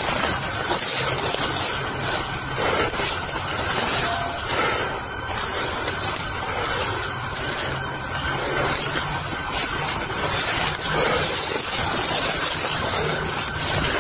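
Steady rustling hiss on a body-worn camera's microphone as the wearer pushes through dense undergrowth, with leaves and branches brushing against it.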